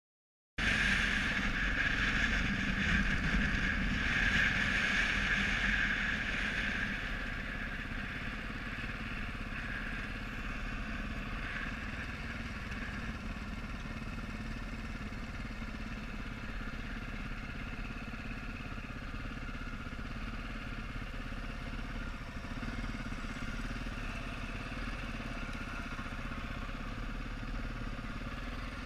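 Dirt bike engine running at low speed, heard from on the bike as it rides along a sandy track; the sound cuts in suddenly just after the start and is louder for the first few seconds, then settles to a steady level.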